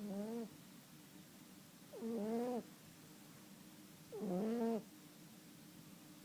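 Himalayan cat snoring in its sleep: three squeaky, pitched snores about two seconds apart, each rising and falling over about half a second, with a faint low drone between them and a fourth snore starting at the very end.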